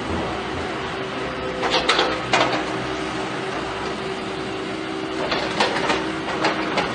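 Caterpillar skid steer loader running with a steady engine hum. Sharp metallic knocks and clanks come about two seconds in, and again a cluster of them from about five to six and a half seconds.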